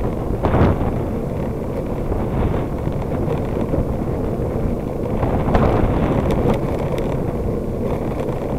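Wind buffeting the microphone of a bicycle's handlebar camera while riding, over a steady low rumble of tyres on asphalt. A few light clicks and rattles come through, about half a second in and again after about five seconds.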